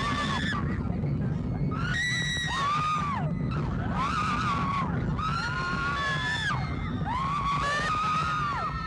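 Women on a roller coaster screaming, a string of long high screams one after another, over the steady low rumble of the coaster cars running along the track.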